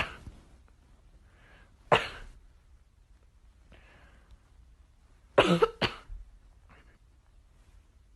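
A few short, sharp coughs: one at the start, one about two seconds in, and two in quick succession about five and a half seconds in.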